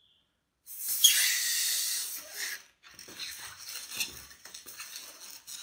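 A long yellow latex twisting balloon being blown up by mouth to about half its length: one hard breath rushes into it for about two seconds and stops abruptly. After that come the quieter rubbery squeaks and rubbing of the inflated balloon being handled.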